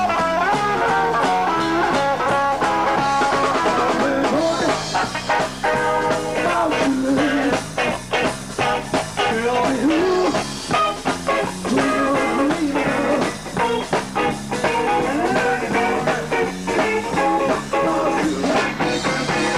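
A live band playing: Telecaster-style electric guitar lines over bass guitar, with a steady percussion beat coming in a few seconds in.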